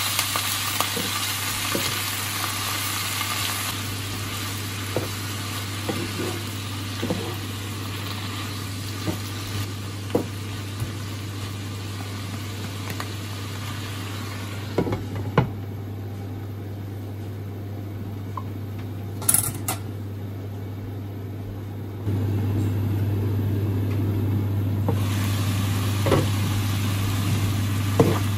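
Napa cabbage and carrots sizzling in a frying pan while a wooden spatula stirs them, with small scrapes and taps against the pan. Midway a glass lid covers the pan and muffles the sizzle for several seconds, with one sharp clink. Then the sizzling comes back clear, with more spatula taps near the end.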